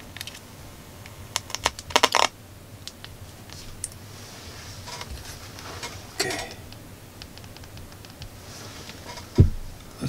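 Light clicks and taps from a smartphone being handled and its screen tapped: a quick cluster about two seconds in, a single click near the middle and a low thump near the end.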